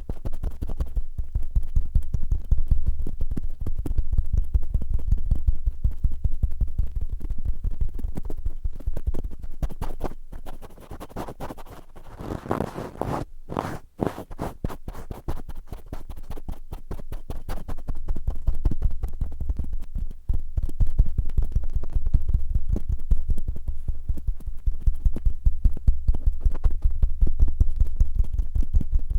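Cotton swabs rubbing and scratching roughly inside an ASMR microphone's ear: a fast, continuous run of strokes with a deep rumble beneath. They ease off to lighter, quieter strokes for a few seconds around the middle, then pick up again.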